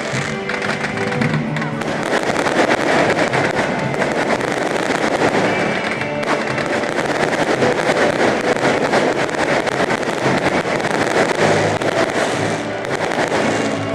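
Fireworks going off in a dense, rapid crackle of bursts throughout, with music playing underneath.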